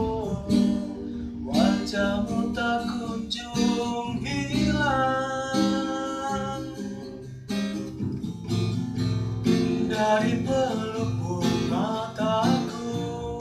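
A person singing to a strummed acoustic guitar, the voice holding some long notes over the chords.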